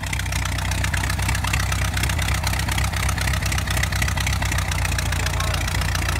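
The four-cylinder engine of a 1927 Model T Ford homemade tractor, idling steadily with an even, fast firing beat.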